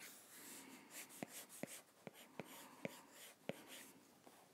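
Faint tapping and scratching of a stylus tip on an iPad's glass screen while sketching, with sharp little clicks roughly twice a second between soft strokes.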